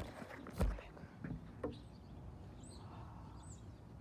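A few dull knocks, the loudest about half a second in, then two faint, short, high bird chirps in the second half.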